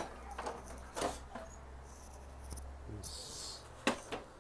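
Plastic top cover of an Epson LQ-690 dot matrix printer being unlatched and lifted off: light plastic clicks and knocks, a brief scrape about three seconds in, and a sharper click near the end.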